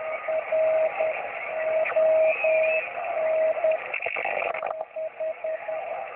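Kenwood TS-480SAT receiving 27.555 MHz in upper sideband: band-limited hiss and static with a single steady-pitched tone keyed on and off in long and short beeps, like a Morse code signal.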